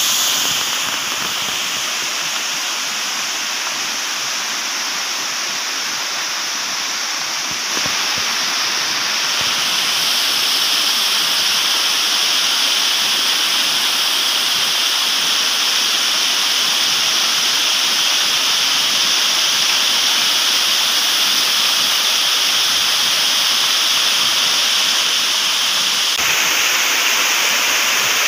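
Steady rush of a rain-swollen waterfall pouring down a rock cliff. It is a little quieter for the first several seconds and louder from about eight seconds in.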